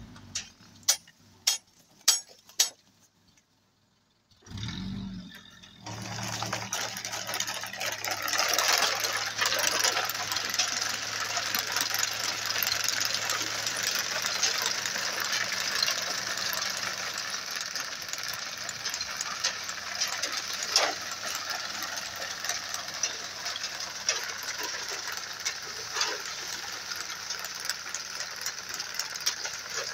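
1920s McCormick-Deering corn binder at work cutting and binding corn, its mechanism making a rapid, steady mechanical clatter. The towing truck's engine hums low underneath. A few sharp clicks and a short gap come before the clatter starts, about six seconds in.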